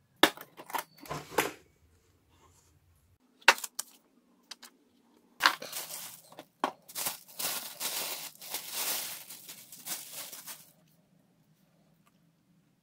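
Thin plastic bag crinkling and rustling as it is handled, for about five seconds from near the middle. Before it come a few sharp clicks and knocks of handling.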